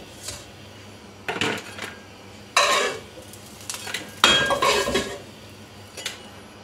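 Metal spatula scraping and clinking against a non-stick wok as fried fish pieces are lifted out, in three or four separate clatters, the longest about four seconds in.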